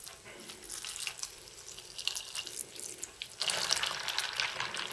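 Salt water poured in a thin stream from a jug onto a bowl of shelled sunflower seeds, splashing and trickling among the kernels. The pour grows louder about three and a half seconds in.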